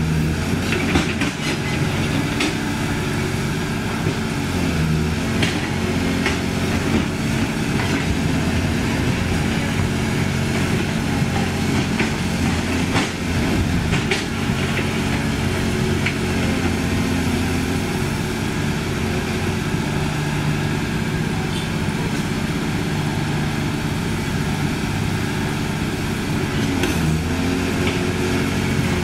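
CAT 320D excavator's six-cylinder diesel engine running steadily while the machine digs and loads earth, with a few short knocks scattered through.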